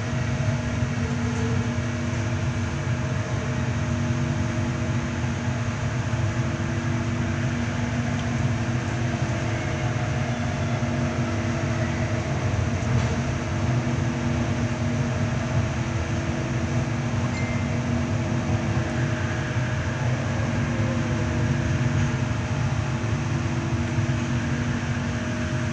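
Steady running noise heard from inside a Kelana Jaya Line LRT train moving along elevated track: an even rumble of wheels on rails with a steady low motor hum.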